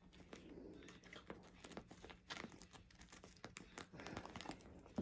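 Faint crinkling and scuffling as a kitten grabs and kicks a small toy on carpet, with scattered light taps and scratches.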